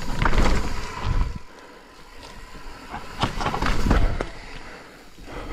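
Mountain bike rattling and clattering over rough trail, with tyres and frame knocking over bumps in two loud rough spells about a second long, the second starting about three seconds in.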